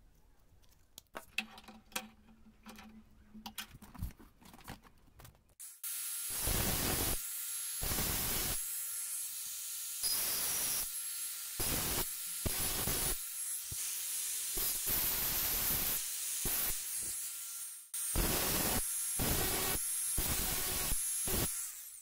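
Light clicks of small metal parts being handled, then about five seconds in an angle grinder's cut-off disc starts cutting a steel rod clamped in a vise: a loud hissing grind in several stretches with brief breaks, stopping just before the end.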